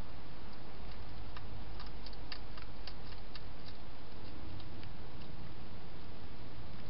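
Wild hedgehog eating dry food in a plastic feeding box: a run of small, irregular clicks of crunching, thickest in the middle, over a steady hiss.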